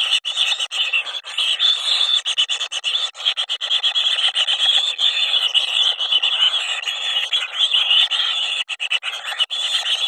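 Kingfisher nestlings giving a continuous, rapid, high-pitched begging chatter.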